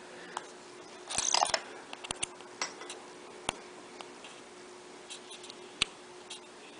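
Small sharp clicks and taps with a brief scratchy scrape about a second in: small hand tools and phone parts being handled during a smartphone screen repair, over a faint steady hum.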